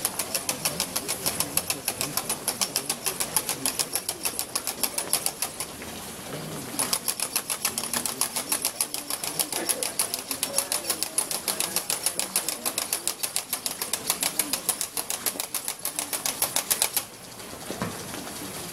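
A rapid, even run of sharp clacks from a percussion instrument carried in the procession, about five strokes a second. It breaks off briefly about six seconds in, resumes, and stops about seventeen seconds in.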